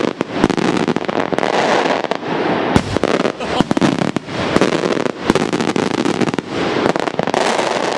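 Maltese daylight fireworks going off: a dense, continuous run of loud bangs and crackling, with a sharper crack about three seconds in.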